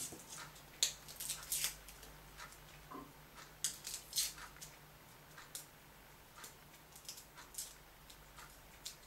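Light, irregular clicks and taps of garlic cloves and vegetables being handled and set down on a kitchen plate, thinning out after the first few seconds.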